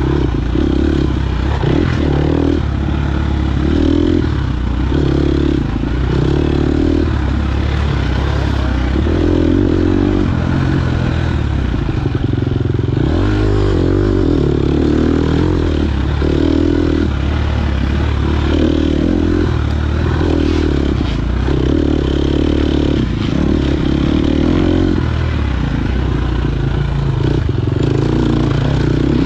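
KTM 250 XC-F four-stroke single-cylinder dirt bike engine under race throttle, swelling and dropping every second or two as the throttle opens and closes and the bike shifts gears.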